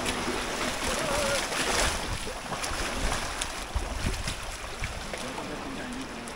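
Shallow seawater washing over a rocky reef flat, with feet splashing through it, in a steady wash of surf.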